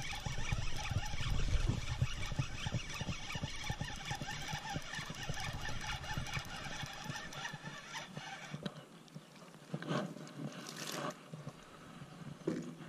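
Spinning reel being cranked, with clicking and rustling as a small bass is reeled in. Near the end the cranking stops and a few short splashes follow as the fish is drawn up at the surface.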